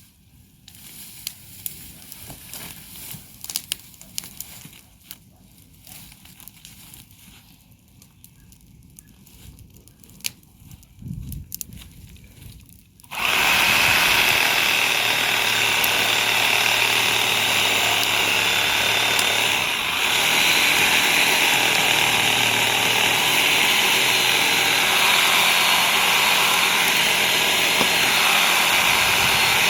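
Scattered light clicks and rustling, then about halfway through a motorised power tool starts up suddenly at full speed and runs steadily, with one short dip a few seconds later.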